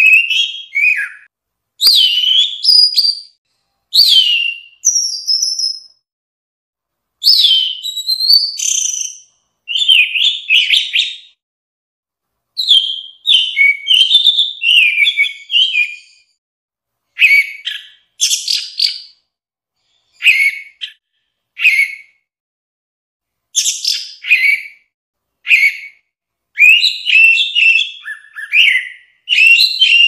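Orange-headed thrush singing: a string of short, varied whistled phrases with quick up-and-down glides, each a second or two long, with brief silent pauses between them.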